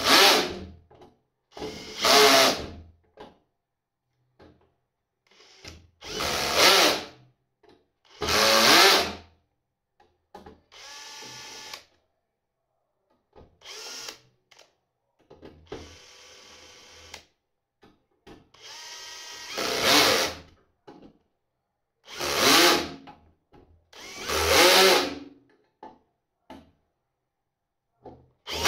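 Cordless drill-driver driving screws, running in short bursts of about a second, eight or so times, with a few longer, softer runs in between, as the battery terminals are screwed into the case's front panel.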